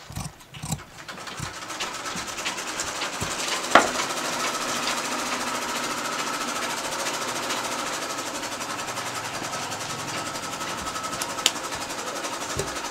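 Sewing machine running steadily at speed, a fast even needle rhythm that starts about a second in, with a sharp click about four seconds in.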